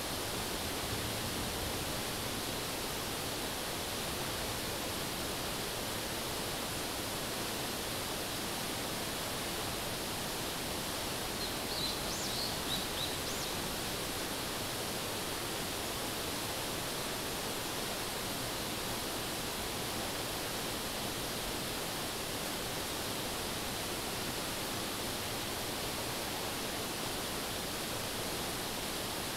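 Steady rushing of a mountain river flowing over rocks, an even hiss with no pauses. A few short high-pitched chirps come briefly about halfway through.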